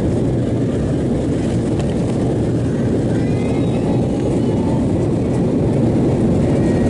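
Steady roar of an Embraer 190's twin GE CF34 turbofan engines and rushing air, heard from inside the passenger cabin during takeoff. The sound is deep and even throughout.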